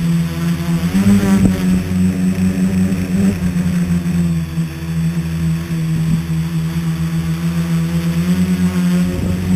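Scratch-built tricopter's motors and propellers humming steadily, heard close up from on board. The pitch rises about a second in, falls back a couple of seconds later, and rises again near the end as the throttle changes.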